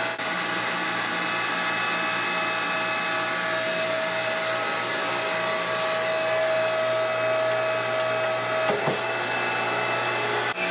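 StepX-3000 CO2 compressor running steadily, a continuous mechanical hum with several steady whining tones, while it pressurizes the CO2 toward its 2200 psi set point. One of the whining tones drops out about nine seconds in, with a brief click.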